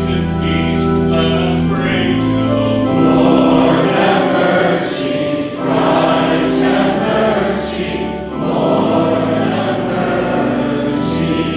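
Church congregation singing part of the Lutheran liturgy together, with sustained instrumental accompaniment under the voices.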